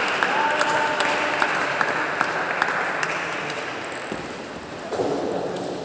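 Spectators applauding, individual claps audible, dying away over a few seconds, with a short steady tone about half a second in.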